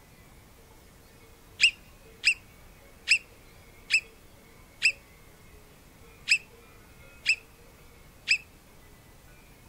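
Alpine marmot giving eight short, sharp alarm whistles at roughly one-second intervals, starting about a second and a half in. A run of repeated whistles like this is its alarm call for a predator on the ground.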